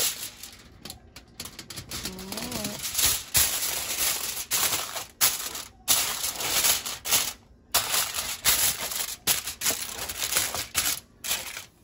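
Aluminium foil crinkling and crackling close up in irregular bursts as it is spread and crimped over a baking pan to cover it.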